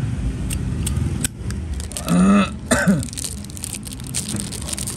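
A man clearing his throat briefly about two seconds in, over a steady low background rumble, with a few small sharp clicks scattered through.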